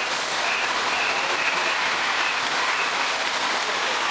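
A steady rushing hiss.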